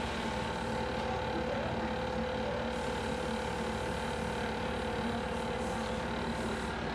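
Steady hum of factory machinery, motors running, with several steady tones over an even noise.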